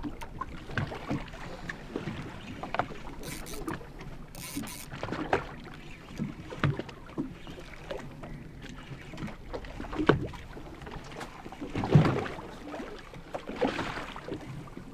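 Water slapping and splashing against a fishing boat's hull in irregular knocks, with two short hisses about three and a half and four and a half seconds in.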